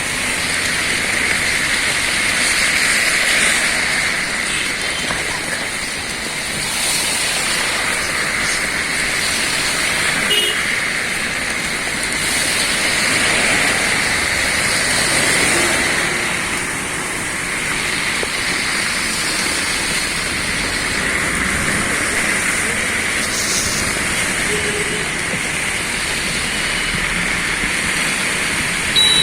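Steady rushing noise of rain and traffic on a wet road, swelling and easing every few seconds.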